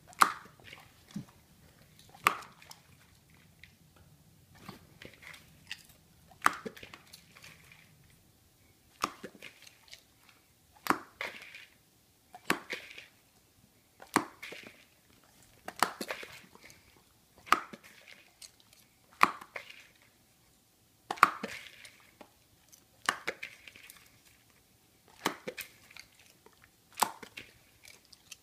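A chocolate Labrador snapping up pieces of popcorn. Its jaws clack shut about every one and a half to two seconds, and each snap is followed by a few quick crunching chews.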